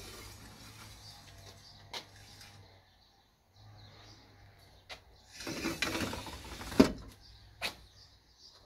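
Steel grill grate sliding on its metal rails in a brick barbecue: metal scraping and rattling for about a second and a half, past halfway, ending in a loud clang as it seats. A few sharp metallic clicks come before and after.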